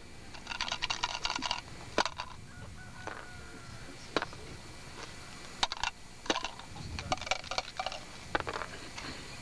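Coins being tossed and landing on a cardboard playing board: scattered sharp clicks and clinks, some single and some in quick clusters.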